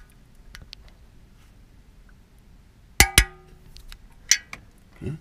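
Torque wrench set to 18 foot-pounds, with socket and extension, on an oil pickup tube nut: two sharp, ringing metallic clicks about three seconds in, a lighter click a second later, and a dull knock near the end.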